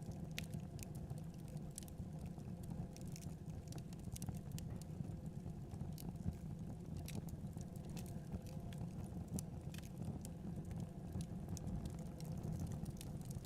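Wood fire burning in a fireplace: logs crackling, with irregular sharp pops and snaps several times a second over a steady low rumble of the flames.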